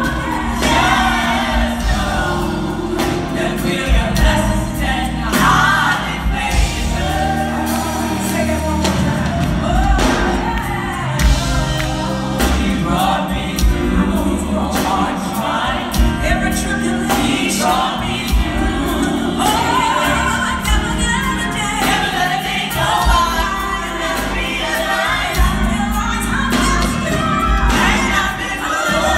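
Live gospel music: several voices singing together over an amplified band of keyboards and guitar, with drum hits throughout.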